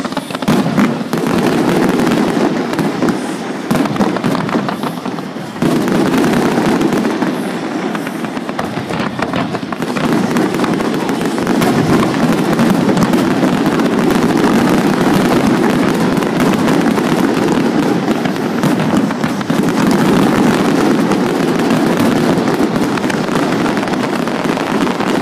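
Fireworks display: aerial shells bursting overhead in quick succession, a near-continuous barrage of bangs and crackle with no pause.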